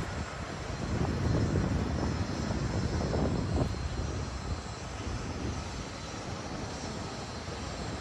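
Wind buffeting the microphone, a gusty low rumble that swells and eases.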